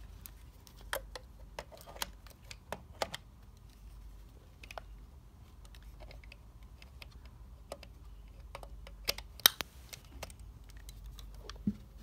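Plastic clicks and taps from a plug adapter and power-strip plug being handled and pushed into a wall socket, irregular and light, with the loudest pair of clicks about nine and a half seconds in.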